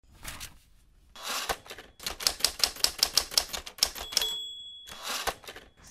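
Manual typewriter: a short rasp, then a fast run of keystrokes, the bell dinging once, and a final clatter near the end.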